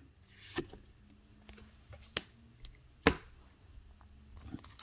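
Hands handling trading cards: a few light, sharp taps and clicks as the cards are squared and set down, then a quicker run of small clicks near the end.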